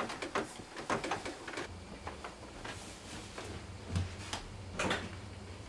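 Rustling and quick clicks of a person getting up off a bed, then scattered knocks of movement through a bathroom doorway, with two louder thumps about four and five seconds in.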